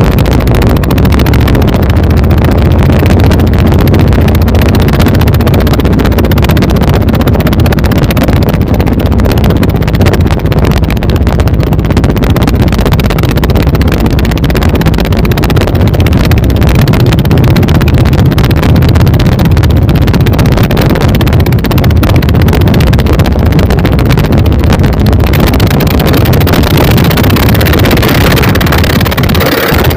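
Twin dompeng single-cylinder diesel engines running steadily under power, pushing a wooden boat on a speed run: a loud, continuous low drone.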